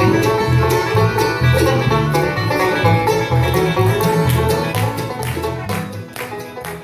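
Live bluegrass band playing with banjo picking, acoustic guitar, fiddle and mandolin over an upright bass plucking a steady beat.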